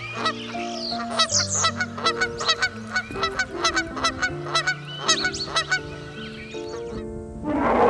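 A flock of birds calling in rapid, repeated honks over background music with a melody; the calls cut off suddenly near the end.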